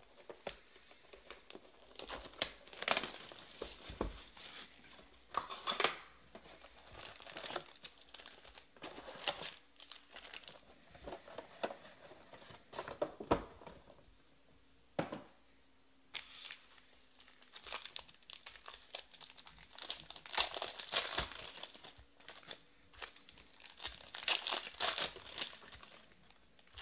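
Foil wrappers of Panini Prizm baseball card packs crinkling in irregular bursts as the packs are handled and torn open.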